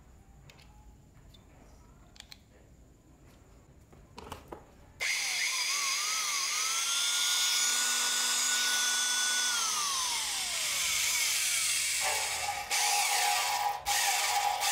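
Restored antique Shinko electric drill: a few light clicks of handling, then about five seconds in the motor switches on and runs free with a whine that rises, holds steady and winds down as it is switched off. Near the end the drill runs again, its bit cutting into a steel tube.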